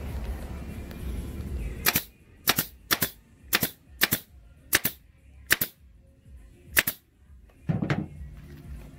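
Staple gun firing eight times at an uneven pace, each a sharp snap, as it fastens vinyl upholstery to a wooden seat base.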